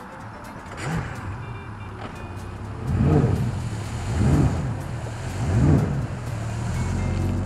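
Outboard motor of a bass boat run aground on a sandbar, revved up and back down again and again, about three strong surges over a steady engine hum, as the boat tries to power off the sand without moving.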